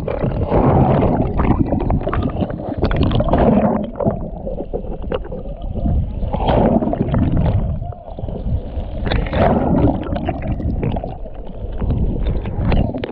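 Surf churning and gurgling around a camera held underwater, heard muffled, with the water surging louder about every three seconds as waves wash over it.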